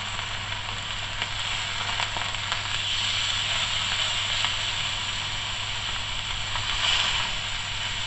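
Chicken breasts frying in hot olive oil on a griddle pan: a steady sizzle with fine crackles, swelling a little partway through, over a steady low hum.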